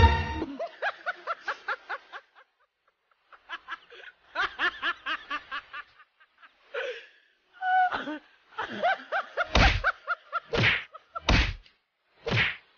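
A voice laughing in short, rapid bursts, then a run of loud, sharp cries about a second apart near the end.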